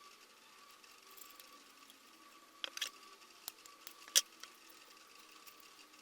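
A few sharp clicks and taps of hand work on a battery pack, a small cluster a little over halfway through and one louder click a second or so later, over a faint steady electrical whine.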